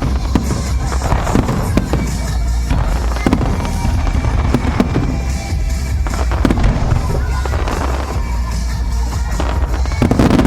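Aerial fireworks bursting in quick succession: repeated booms with crackling between them, with one of the loudest bursts near the end.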